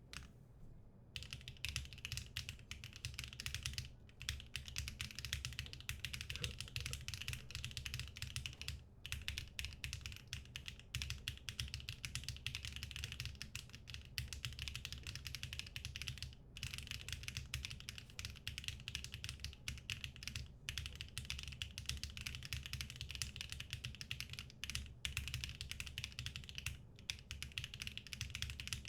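Fast, continuous typing on a Neo65 mechanical keyboard with HMX Bamboo switches, aluminum and no dampening foam, the keystrokes clacking in quick runs with a few brief pauses. The typing starts about a second in.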